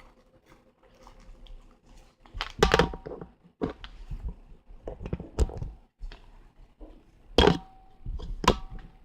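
Handling of a plastic talking toy figure: a series of sharp knocks and clicks, the loudest three a few seconds apart, some followed by a short steady tone.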